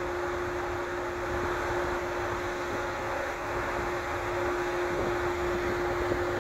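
Steady drone from an oil tanker's funnel while its slow-speed diesel runs: a constant hum over an even rushing noise.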